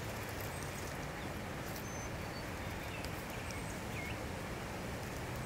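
Outdoor ambience: a steady low rumble under faint, scattered chirps of small birds.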